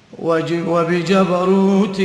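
A man's voice chanting an Arabic supplication in a slow, melodic recitation with long held notes, starting a moment after a brief pause.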